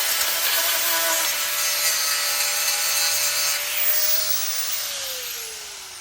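Handheld power tool spinning up and grinding into a metal seat bracket to widen a bolt hole: a steady, harsh grinding over the motor's whine. About five seconds in, the tool is released and winds down with a falling whine.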